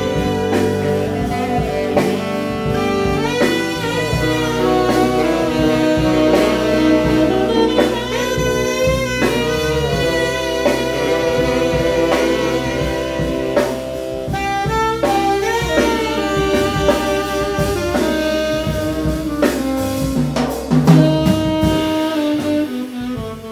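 Live jazz band: several tenor saxophones play held notes together in harmony over a drum kit with cymbals, electric bass and keyboard. The music swells to its loudest near the end, then falls away.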